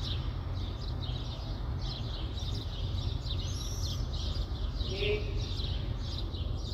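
Many small birds chirping and twittering over a steady low rumble of city background noise.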